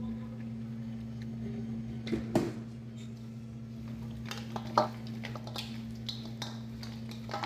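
Bare hands mixing chunks of goat meat with green seasoning paste in a stainless steel bowl: wet squelching from about two seconds in, with a few sharper knocks against the bowl, over a steady low hum.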